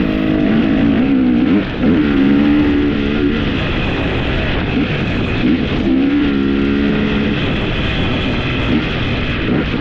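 A vehicle engine running, its pitch rising and falling several times.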